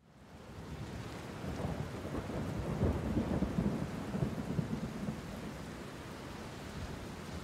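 Thunderstorm ambience: steady rain with rolling thunder. It fades in at the start, and the rumble is heaviest in the middle before settling.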